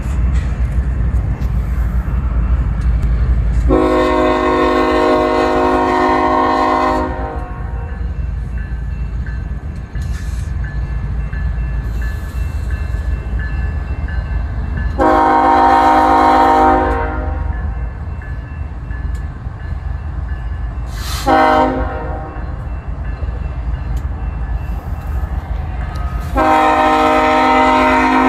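Lead locomotive BNSF 7950's air horn sounding the grade-crossing signal, two long blasts, a short one, then a long one held to the end, over the steady low rumble of the BNSF diesel locomotives passing.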